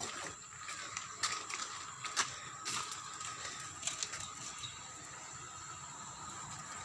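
Scattered crunches and clicks of footsteps on gravel, over a faint steady high hum of the outdoors. A low rumble grows slightly toward the end.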